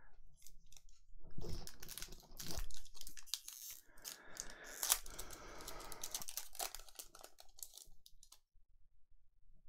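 A sealed trading card pack being opened by hand: the wrapper crinkling and tearing in a dense run of crackles and rustles that stops about eight seconds in.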